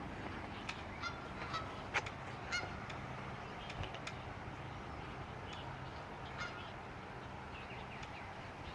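Geese honking in short, scattered calls, most of them in the first half.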